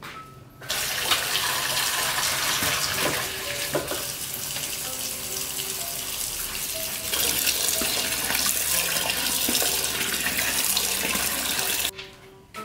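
Water running hard from a tap, an even rushing noise that starts about a second in and stops abruptly near the end, as when a tap is turned on and off.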